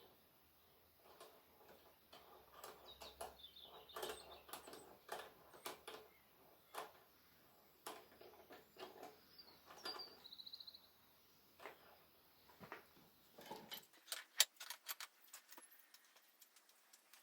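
Faint, scattered clicks and knocks of wrenches working a reusable hydraulic hose fitting tight, with a short bird chirp about ten seconds in.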